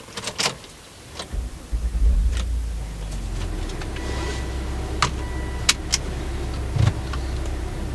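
A few sharp clicks and knocks, then a car engine starts about a second and a half in and runs steadily, with more clicks and knocks over it.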